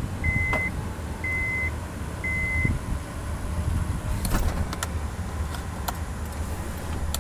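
Three short, steady electronic beeps, about a second apart, in the first few seconds over a low steady rumble, then a few light clicks.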